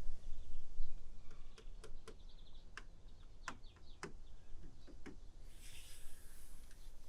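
A scattered series of light, sharp clicks and taps, about a dozen, followed by a brief hiss about five and a half seconds in.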